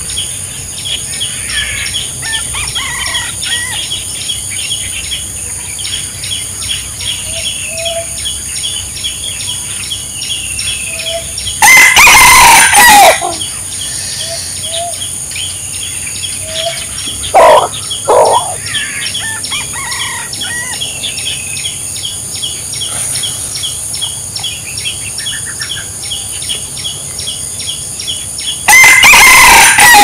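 Wild rooster (red junglefowl) crowing twice, about twelve seconds in and again near the end, each a short loud crow of about a second and a half, with two short loud calls in between. Steady insect chirping and faint small-bird chirps underneath.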